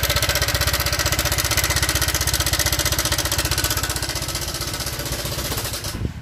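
Honda Vario 125 scooter's single-cylinder engine running with a very rough, rapid, even clatter ('klatak-klatak' mixed with ticking) that cuts off just before the end. Low or degraded oil and a worn cam chain tensioner are the first suspects for a rattle like this.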